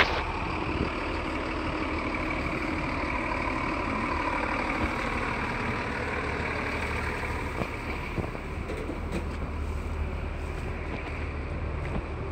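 Steady street traffic noise with vehicle engines running, and a low rumble that grows stronger about two-thirds of the way through. A short knock right at the start.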